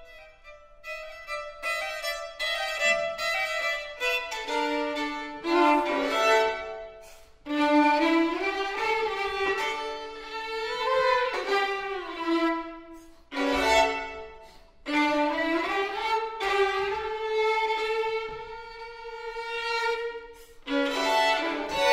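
Two violins playing a duet in short bowed phrases with upward pitch slides, separated by brief pauses.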